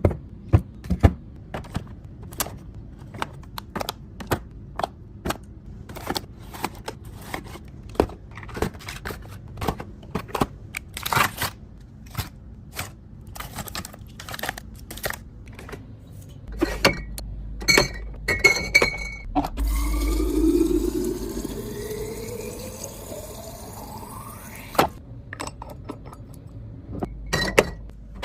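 Food containers and packaging being handled and set down while a fridge is restocked: a run of clicks, taps and clinks. About twenty seconds in, liquid pours into a container for about five seconds, its pitch rising as it fills, then stops abruptly.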